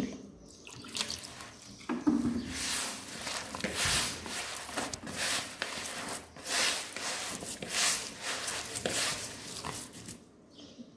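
A hand mixing crumbly, moistened semolina-and-flour dough in a plastic bowl: irregular rustling, scraping swishes as the mixture is rubbed and pressed against the bowl.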